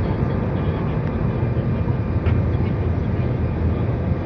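Steady low rumble of a jet airliner's engines and rushing air, heard inside the passenger cabin during the climb-out after takeoff.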